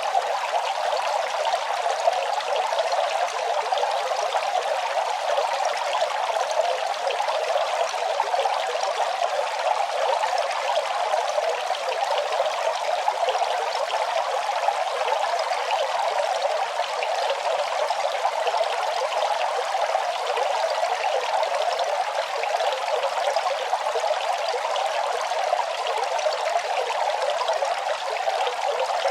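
Running water trickling in a steady, unbroken flow.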